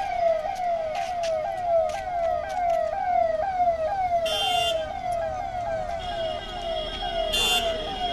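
Convoy vehicle siren sounding a fast repeating yelp: each sweep rises, then drops back sharply, about two or three sweeps a second. Two short, loud blasts of a higher tone cut in about four and seven seconds in.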